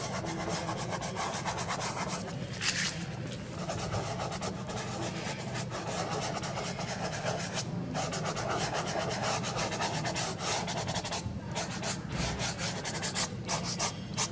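Fingertips rubbing soft pastel into pastel paper to blend and feather cloud edges: a continuous dry, scratchy rubbing with a few brief breaks as the hand lifts and shifts.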